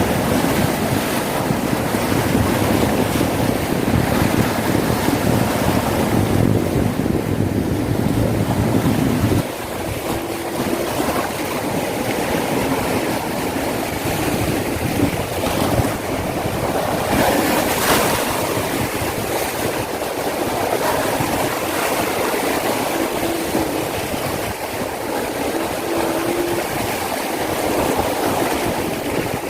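Sea waves breaking and washing up on a beach, a steady surf noise with a stronger wave surging in about halfway through. Wind rumbles on the microphone for the first nine seconds or so, then cuts off suddenly.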